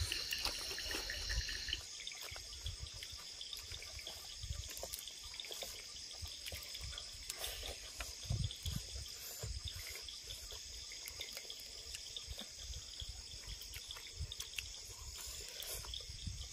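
A steady chorus of insects chirping, with short clicks and soft wet smacking from people eating by hand.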